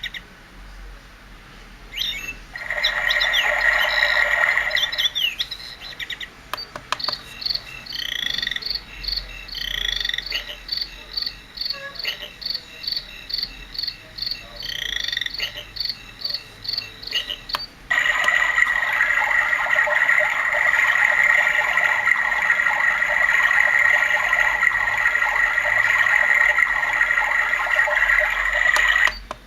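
Alarm clock playing its built-in nature-sound recordings: repeated insect-like chirping, with a few clicks. About two-thirds of the way in it switches abruptly to a dense, continuous cricket chorus, which cuts off just before the end as the next sound starts.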